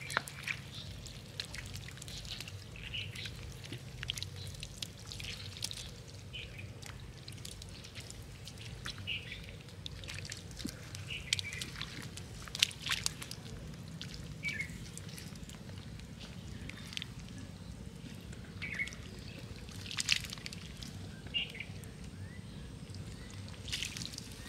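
Fish splashing and sloshing in shallow muddy water, with irregular sharp splashes. Short bird chirps come over it now and then.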